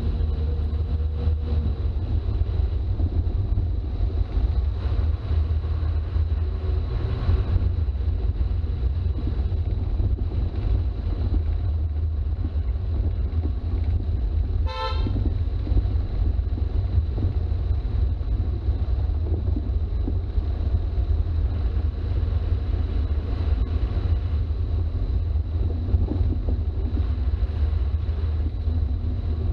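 Toyota HJ61 Land Cruiser's turbo-diesel running steadily on the road, a constant low drone. A vehicle horn gives one short toot about halfway through.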